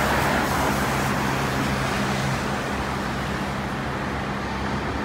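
Road traffic on a multi-lane city street: cars passing, with a steady low engine hum underneath. The tyre and engine noise is loudest at the start and eases off.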